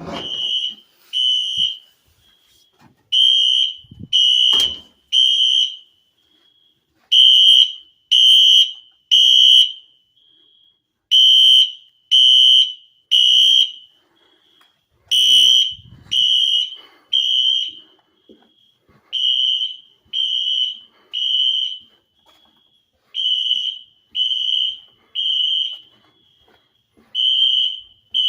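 Wheelock fire alarm horns sounding the temporal-three evacuation code: three short, shrill blasts, then a pause, repeating about every four seconds.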